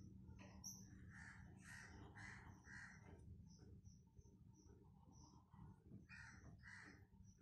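Faint calls of a bird in the background: four short calls in a row about half a second apart, then two more a few seconds later, over a steady low hum.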